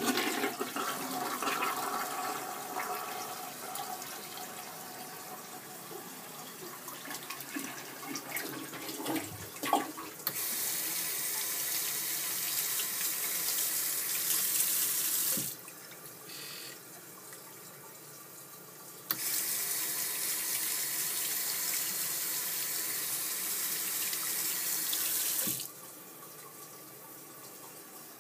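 A toilet flushing and refilling for about the first ten seconds. Then a sink faucet with an iTouchless EZ Faucet sensor adapter runs water into the basin for about five seconds, shuts off abruptly, and after a short pause runs again for about six seconds before shutting off abruptly.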